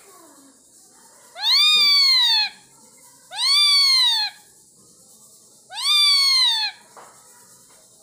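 Indian ringneck parakeet giving three loud, drawn-out calls, each about a second long, rising then falling in pitch, rendered as "Yay!"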